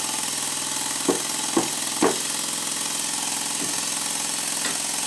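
Stuart Double 10V twin-cylinder model steam engine running fast with a steady mechanical drone. Five sharp knocks at uneven intervals, three close together in the first half and two further apart later, come from the spinning crankshaft being struck to straighten a bend in it.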